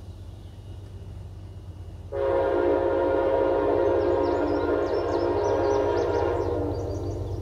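Train horn sounding one long chord blast of several notes, starting suddenly about two seconds in and held for about five seconds. Under it runs the steady low rumble of the train.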